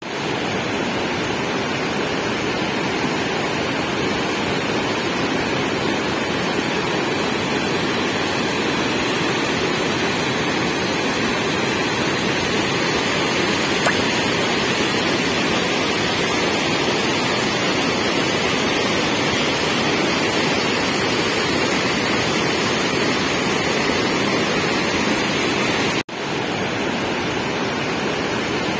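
Floodwater rushing through a dam's open spillway gates and churning over the rocks below, a loud, steady rush of water. It breaks for an instant near the end at a cut, then carries on.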